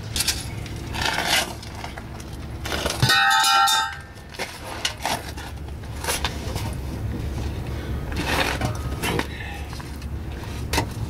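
Metal clinks, knocks and scrapes from hand work on the underside of a truck during exhaust removal. About three seconds in comes one loud metallic clang that rings for about a second. A steady low hum runs underneath.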